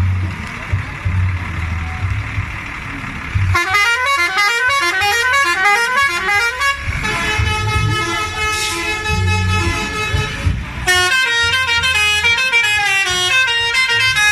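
Bus engine running, then from about three and a half seconds in a loud musical horn plays quick runs of notes stepping up and down, holds a steady chord for a few seconds, and runs through fast note patterns again near the end.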